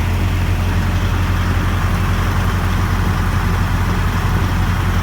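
Heavy truck engine running steadily on a dynamometer, with a strong, even low hum and no change in pitch.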